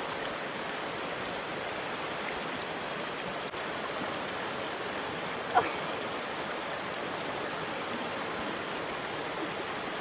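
Shallow river running steadily over rocks and boulders in a small rapid, an even rushing of water. One brief sharp sound stands out a little past halfway.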